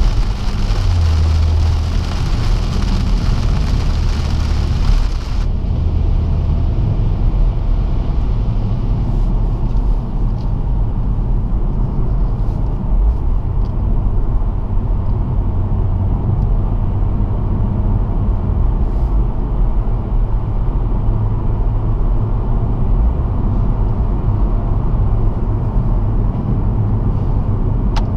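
BMW M140i's turbocharged straight-six running steadily, heard from inside the cabin together with tyre and road noise. A hiss of rain and wet tarmac cuts off abruptly about five seconds in, leaving a steady low engine and road drone.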